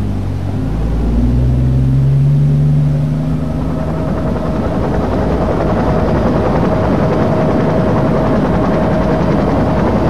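Helicopter flying nearby, its engine and rotor running steadily; a deep hum is strongest in the first few seconds, and a steady high whine comes in a few seconds in.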